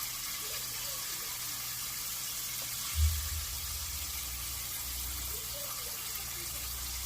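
Battered chicken thighs deep-frying in vegetable oil, a steady sizzle. A low thump about three seconds in.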